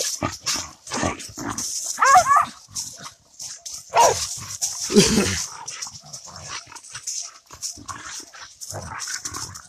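Several dogs play-fighting: a high, wavering yelp about two seconds in and a couple of lower barks or growls around four and five seconds in, over the scuffle of paws in dry leaves.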